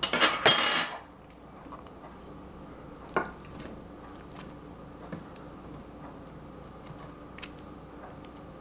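A metal spoon scraping and pushing shredded turkey off a plate into a glass baking dish of vegetables. A loud scrape lasts about a second at the start, then a single clink about three seconds in, and a few faint taps as the meat is spread.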